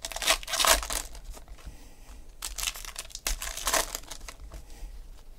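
Foil wrapper of a 2016 Panini Contenders football card pack being torn open and crinkled by hand, in several short bursts.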